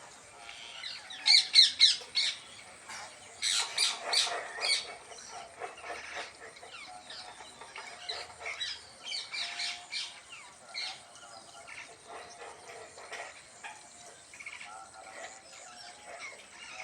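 Parrots squawking and chattering, with loud bursts of calls about a second in and again around four seconds in, then quieter chatter.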